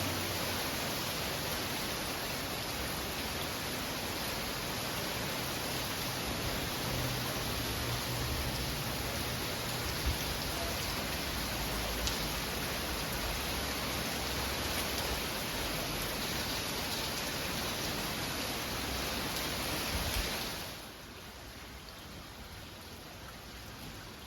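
Heavy rain pouring down in a steady, dense hiss, a cold-front downpour. Near the end it drops suddenly to a much quieter rain.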